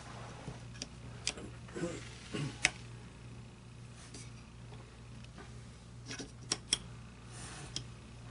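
Small metal clicks and taps of AR-15 hammer and trigger parts being handled and fitted into a lower receiver, a few at scattered moments with a cluster near the end, over a low steady hum.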